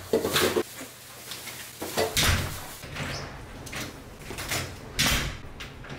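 Interior house door being opened and pushed shut, heard as three short noisy bumps and swishes a couple of seconds apart.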